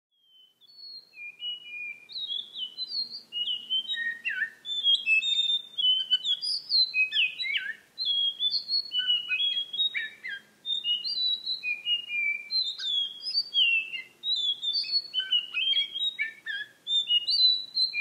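Blue whistling thrush singing: a long run of varied, clear whistled phrases, the notes sliding up and down, with short pauses between phrases.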